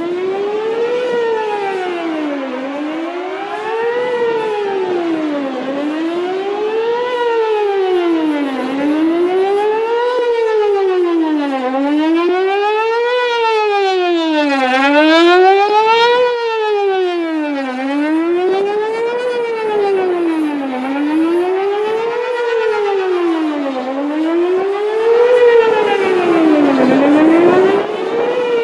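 Whelen WPS-4008 electronic outdoor warning siren sounding a wail during a test, its loud tone sweeping up and down about once every three seconds.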